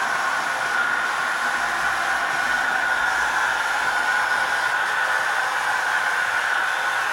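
Märklin HO-scale model trains running on the layout's metal track: a steady whir of small electric motors and rolling wheels, with a high whine held at one pitch.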